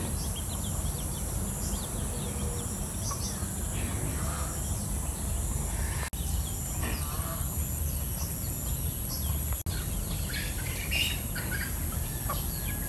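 Outdoor yard ambience: many short bird chirps and scattered chicken clucks over a steady low rumble.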